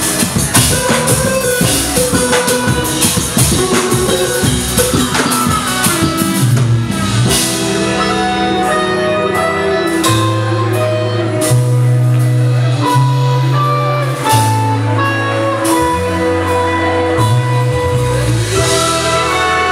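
Live funk band playing with electric guitar, drum kit, keyboard and bass. Busy drumming in the first few seconds, then after about six seconds long held low bass notes take over, with fewer drum hits.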